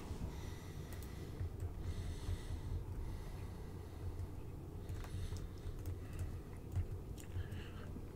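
Faint, scattered clicks of computer keys over a low steady room hum, with a soft breath about two seconds in.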